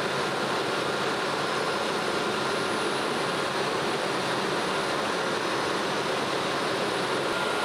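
Steady roar of a KC-135 Stratotanker's CFM56 turbofan engines running during hot-pit refueling, with a faint, steady high whine over it.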